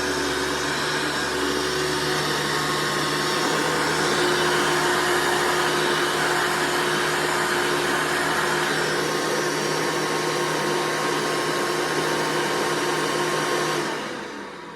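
Hoover C1404 vacuum cleaner running steadily, its motor making a steady whirring hum with a few constant tones; near the end it cuts off and the sound fades away.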